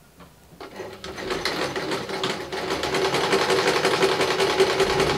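Janome 1 Step 2319S domestic sewing machine stitching a seam: it starts about half a second in, speeds up over the next couple of seconds, then runs fast and steady before stopping abruptly at the end.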